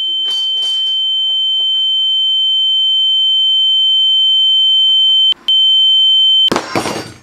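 A steady, high-pitched electronic tone that slowly grows louder, with a brief break near the end, then is cut off by a short, loud, noisy burst.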